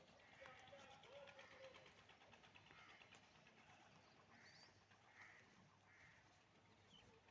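Faint bird calls over quiet outdoor ambience, with three short, similar calls evenly spaced a bit under a second apart about halfway through.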